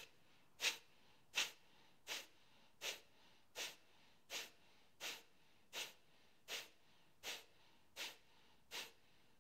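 A woman's forceful exhales through the nose during fast belly-pumping breathwork: faint, short, sharp puffs at an even pace, about four every three seconds, with quiet inhales between.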